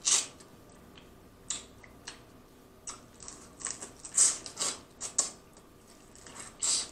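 Close-miked eating of snow crab legs: about a dozen irregular short smacks and slurps as the meat is sucked and bitten out of the leg shells.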